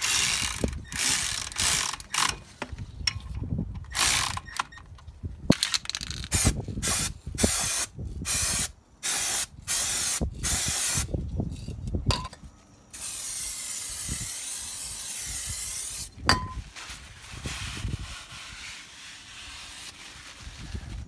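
A ratchet wrench clicking in repeated strokes as it turns the small screw holding a brake disc. Then aerosol brake cleaner is sprayed onto the disc, in short bursts and one steady hiss of about three seconds, followed by quieter rustling.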